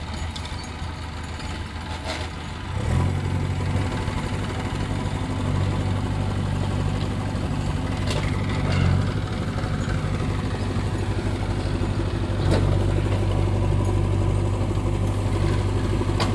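JCB 3DX backhoe loader's diesel engine running, with the revs and load rising about three seconds in and again near the end as the backhoe arm digs into the earth. A few short metallic clanks from the bucket and arm come through along the way.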